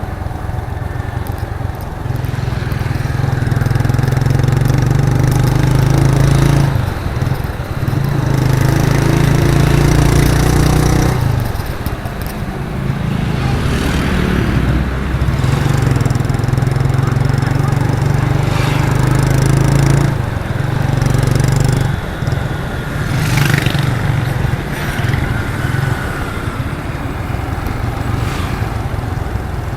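A 1998 Suzuki GN125's single-cylinder four-stroke engine running under way, its exhaust note pulling steadily and dropping away briefly twice, about 7 and 12 seconds in, before picking up again.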